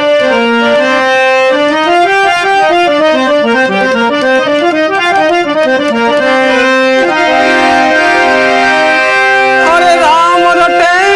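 Harmonium playing a melody in quick runs of stepped, sustained reedy notes. Near the end a voice comes in on a held, wavering note over it.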